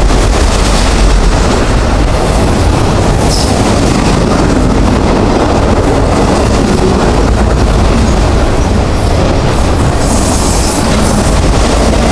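Autorack freight cars rolling past close by: a loud, steady rumble and rattle of steel wheels on the rails, with brief high-pitched bursts about three seconds in and again around ten seconds in.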